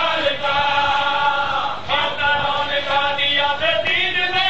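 Men's voices chanting in long held phrases, a mourners' religious chant, with a short break just under two seconds in.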